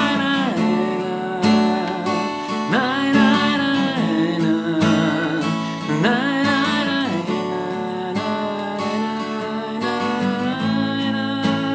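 Acoustic guitar strumming chords, with a wavering melody line over it in an instrumental passage.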